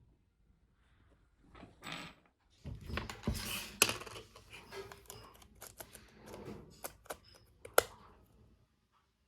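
Hands handling the parts of a mobile phone being restored: a run of small clicks, taps and scraping, with two sharp clicks standing out, one about four seconds in and one near the end.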